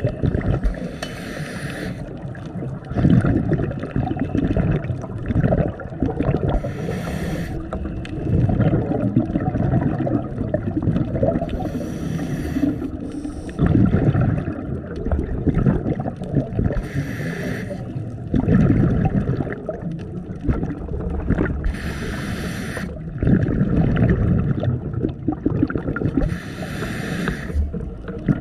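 Scuba regulator breathing underwater: a short hiss on each inhale, then a gurgling rumble of exhaled bubbles, one breath about every five seconds.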